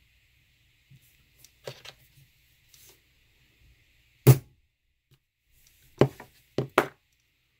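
Hammer striking a hole punch to punch holes in a vinyl strip: two light taps, one loud strike about four seconds in, then three more strikes near the end.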